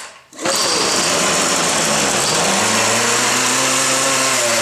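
Two-stroke string trimmer engine with a freshly rebuilt carburetor, catching about half a second in and then running steadily on full choke. It runs strongly instead of sputtering, which the owner puts down to heavy priming with the primer bulb.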